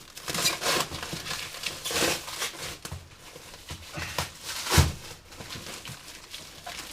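Cardboard parcel and its packing being handled and opened: irregular rustling and scraping with knocks, the loudest a thump a little under five seconds in.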